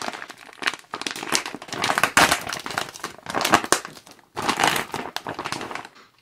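Thick plastic MRE meal bag crinkling and rustling loudly in repeated bursts as it is torn and worked open by hand.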